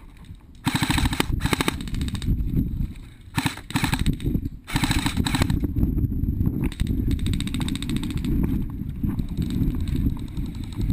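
Airsoft electric rifles firing several short full-auto bursts, rapid rattling strings of shots in the first half. After that comes a steady low rumble of movement and handling noise.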